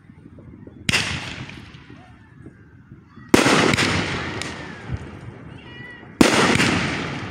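Fireworks bursting: three loud bangs about two and a half to three seconds apart, each followed by a rumbling, crackling tail that dies away over a second or two.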